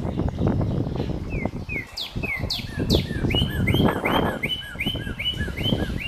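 Birdsong added in editing: a bird repeating short chirped notes, about two to three a second from about a second in, with three high falling whistles around two to three seconds in. Under it runs low wind and rustling noise on the microphone.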